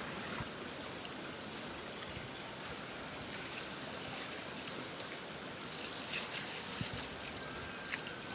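Shallow stream running steadily, a soft even rush of water, with a few faint clicks in the second half.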